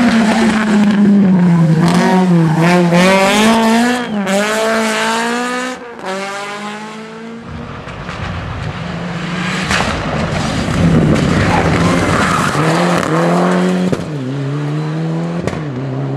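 Rally cars driven flat out: first a classic Opel Kadett rally car, its engine pitch climbing and dropping again and again as the driver shifts and lifts. It breaks off about six seconds in, followed by another rally car accelerating hard through the gears.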